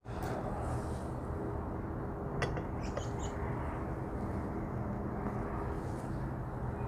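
A glass coffee carafe set down onto a portable camp stove's metal pot supports, giving a light clink about two and a half seconds in and a few small clicks just after. Under it there is a steady low rumble and hum.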